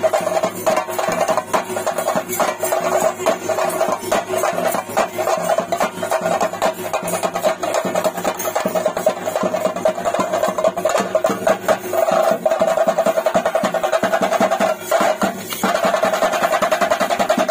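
Theyyam ritual drumming: fast, dense chenda drum strokes with a steady held tone over them, which grows stronger about twelve seconds in.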